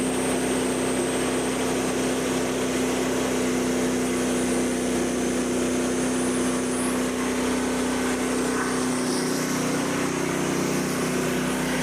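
Frontier band sawmill's 13.5 hp gas engine running steadily at full throttle while the band blade cuts through a white oak log.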